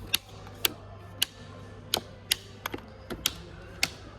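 About nine sharp, irregularly spaced clicks and taps over a steady low hum.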